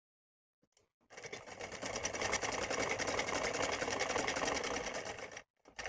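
Sewing machine running a line of stitching through fabric: a steady, evenly rhythmic run that starts about a second in, builds up, and stops shortly before the end.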